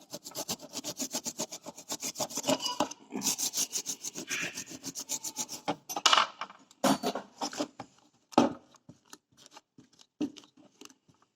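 A freshly soldered e-rickshaw controller circuit board being scrubbed with petrol to clean off the flux, in fast, even back-and-forth strokes. From about six seconds in, the strokes turn slower and scattered.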